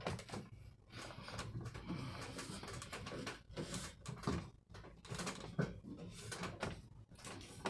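Irregular knocks, clicks and rustling in a small room, with several sharp knocks in the second half.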